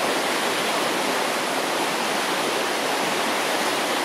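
Swollen, flooded river rushing through whitewater rapids: a steady, loud rush of water.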